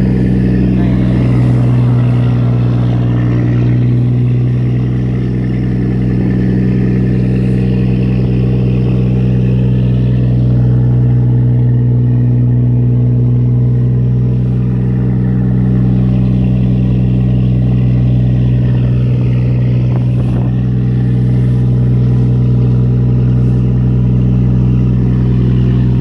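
Fishing boat's inboard engine running steadily at a constant low pitch, the boat under way through rough sea.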